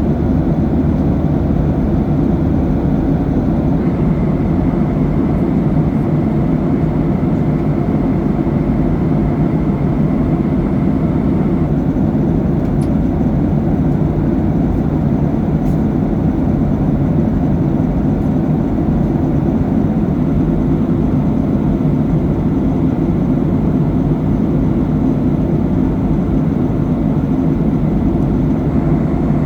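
Steady cabin noise of a Boeing 737-800 in cruise flight: the even, deep rush of airflow and engines heard from inside the cabin. A faint high whine sits on top of it from about four to twelve seconds in.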